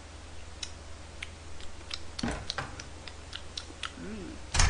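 A person eating close to a microphone: scattered sharp mouth clicks while chewing, a short hummed "mm" about four seconds in, then a single dull knock near the end.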